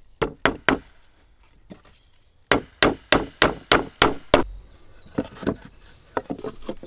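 Nails being hammered through green wooden shingles into a roof batten with the poll of a hatchet: three quick strikes, a pause, then a run of about seven strikes at roughly three a second, with lighter knocks near the end.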